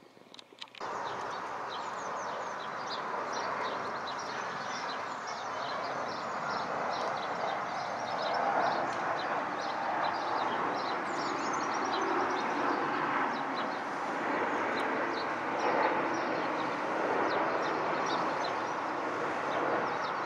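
Steady, distant roar of a Boeing 737 MAX 8's CFM LEAP-1B turbofan engines on approach with gear down, slowly growing louder as it comes overhead, with birds chirping throughout. The sound begins abruptly about a second in.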